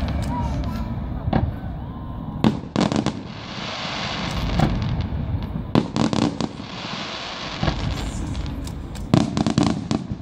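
Fireworks display: irregular sharp bangs of bursting shells, about a dozen, over a continuous rumbling din.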